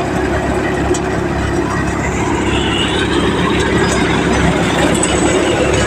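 Tractor-driven threshing machine running steadily while threshing mustard, a loud, even mechanical rumble from the engine and thresher.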